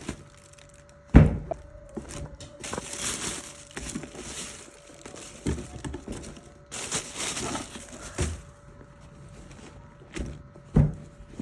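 A shoe box and its packaging being handled: two sharp thumps, about a second in and near the end, with a few lighter knocks and two stretches of rustling between them. A faint steady hum runs underneath.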